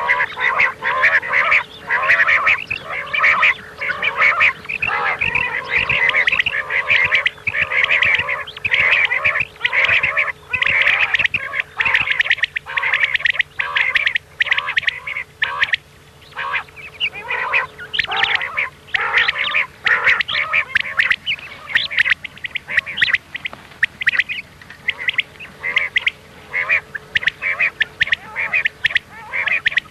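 Common quail calls, many overlapping in a dense, unbroken chorus of quick, high calls, with a faint steady hum underneath. It is a quail-call recording of the kind played to lure quail when hunting.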